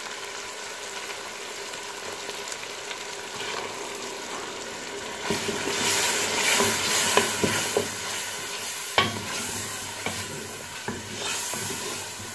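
Beef pieces sizzling in hot oil in a pressure-cooker pot, stirred with a wooden spoon. About five seconds in, yogurt goes into the hot oil and the sizzling grows louder. The spoon knocks against the pot a few times.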